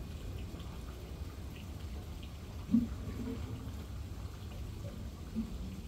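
Faint water trickling and dripping in a shallow goldfish pond, over a steady low hum.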